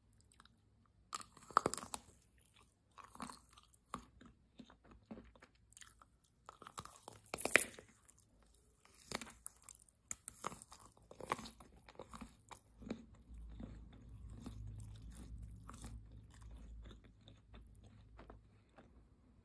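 Close-miked bites and chews of a chocolate-coated marshmallow: the chocolate shell cracks and crunches between the teeth, with the sharpest snaps about 1.5 and 7.5 seconds in. Softer, wetter chewing follows over a low rumble in the second half.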